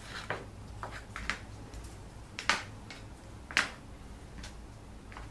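Cardboard craft pieces being handled and set down: a few light taps and knocks, the two loudest about two and a half and three and a half seconds in, over a faint low steady hum.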